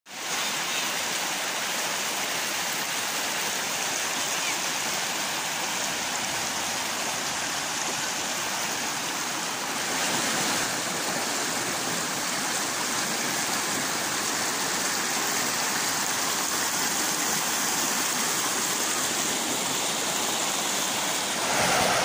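Fast, shallow river rushing over stones and boulders in white-water rapids: a steady rush of water, slightly louder about ten seconds in.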